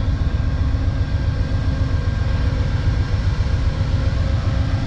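GE P42DC diesel locomotive with its V16 engine idling: a steady low rumble with a few faint steady tones above it.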